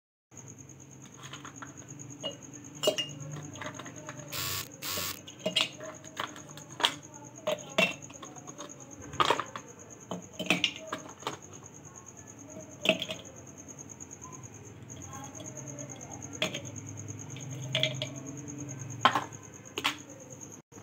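Ice cubes dropped one at a time into a glass mason-jar mug, clinking against the glass and against each other in irregular sharp knocks, with two louder clatters about four and a half and five seconds in.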